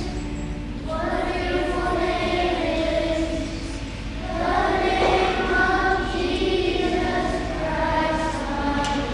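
A choir of children singing in unison, held notes in long phrases with short breaks for breath about a second in and again near the middle.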